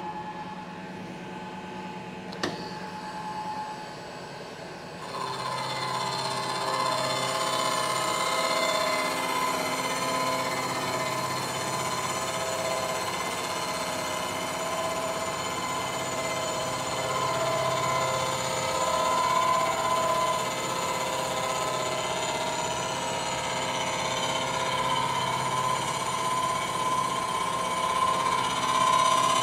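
Face mill with polished carbide inserts on a manual milling machine, cutting an aluminum water pump housing: a steady run of the spindle, then about five seconds in the cutter takes the cut and the sound grows louder, a steady multi-tone whine that holds through the pass. A single click comes about two seconds in.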